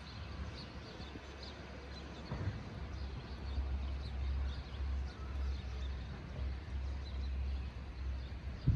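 A few bird chirps over a low rumble that grows stronger about three and a half seconds in.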